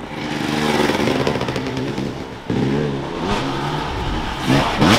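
Enduro dirt bike engines revving hard in bursts as the bikes struggle for grip on a steep, slippery mud bank, with a brief dip about halfway and a sharp rise in revs near the end.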